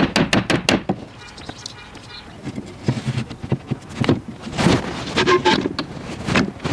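A quick run of about four hammer blows on the elm cabinet frame, knocking mortise-and-tenon joints home, stopping within the first second. Then wooden panels are shifted and fitted by hand, with scraping and dull knocks of wood on wood.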